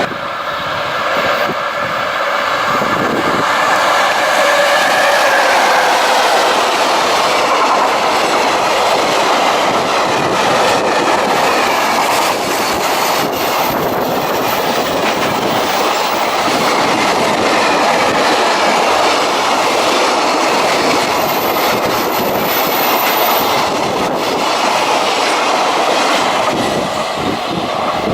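A long electric-hauled freight train passing close by: a continuous rumble of wagon wheels clacking over the rails, with a whine in the first few seconds as the locomotive goes by.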